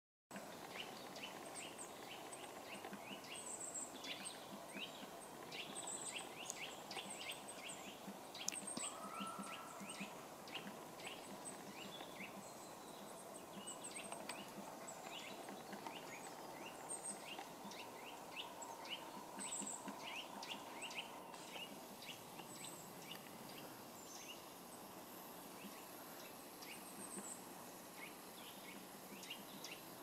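Great spotted woodpecker pecking at a dead branch: irregular sharp taps, a few a second, with short pauses between runs, as it chisels at the wood in search of insect larvae. Short high chirps from small birds come in now and then.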